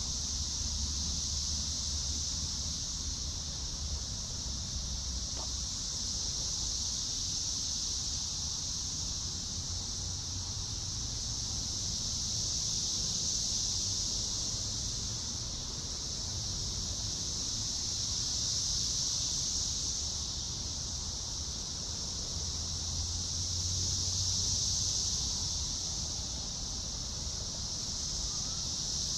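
Steady chorus of insects, a constant high-pitched buzzing that swells and eases slowly every few seconds, over a low rumble of wind.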